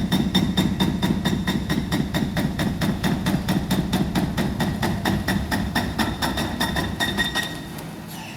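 Excavator-mounted hydraulic breaker hammering concrete, a rapid, even run of blows at about six a second over the rumble of the excavator's engine. The hammering stops about seven and a half seconds in.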